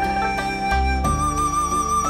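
Background music: a flute melody over sustained bass notes, in a traditional, folk-like style.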